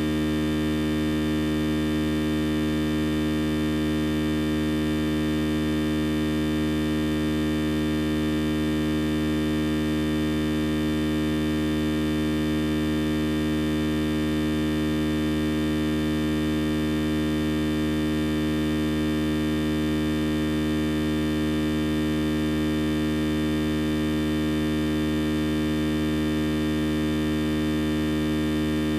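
Steady electrical hum and buzz: several fixed tones over a hiss, unchanging throughout.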